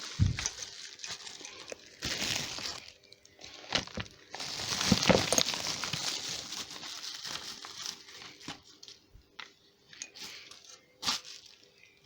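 Packaging crinkling and tearing in bursts, with a few sharp clicks and knocks, as the new bonnet lock barrel is unwrapped.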